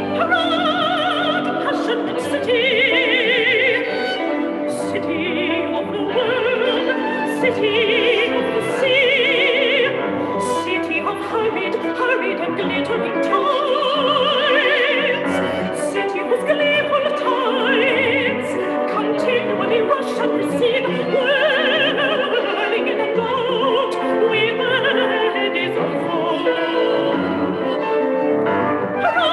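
Classical soprano singing with wide vibrato, accompanied by a chamber ensemble of flute, bowed strings and piano, heard as streamed through a video call.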